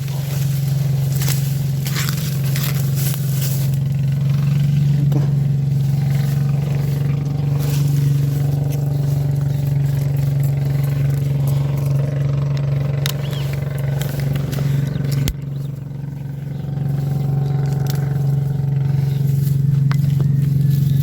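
Steady low engine hum, an even drone running throughout with scattered faint scrapes and clicks. A sharp click comes about fifteen seconds in, and the hum briefly drops in level before building back.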